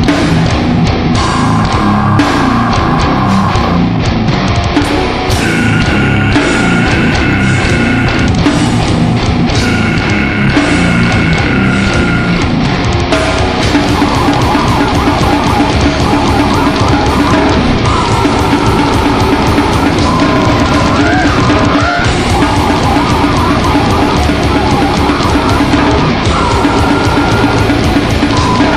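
Heavy metal recording: loud, dense distorted guitars and drums, with the riff changing about halfway through to a held low note under higher guitar lines.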